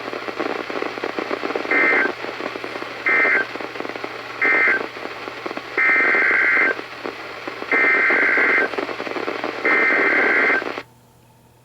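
Weather radio receiver hissing with static while it plays EAS SAME data bursts, a harsh two-tone warble: three short end-of-message bursts about a second apart, then three longer header bursts announcing the next alert. The static cuts off abruptly near the end.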